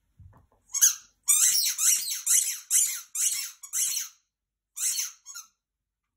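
A dog's squeaky toy squeaking in quick, high-pitched squeaks as the dog chews it: about ten in a row, then two more after a short pause.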